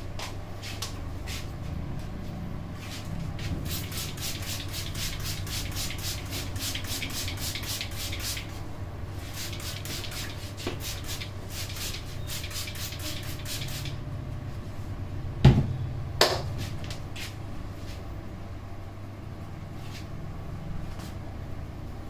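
Hand-pumped water spray bottle squirted over the hair in quick succession, about five sprays a second, in two long runs with a short pause between. Then come two loud sharp smacks about a second apart, over a steady low hum.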